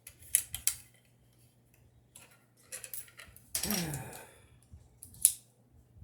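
Small metal tools and phone parts handled on a work surface: scattered light clicks and taps, with a cluster about half a second in and one sharp click a little after five seconds.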